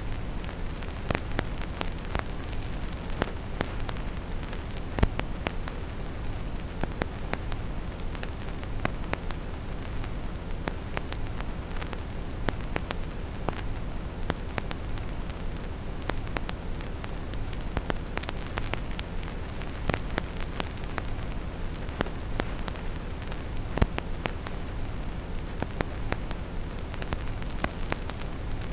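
Vinyl record surface crackle: scattered clicks and pops, with a couple of louder pops, over a steady, deep brown noise.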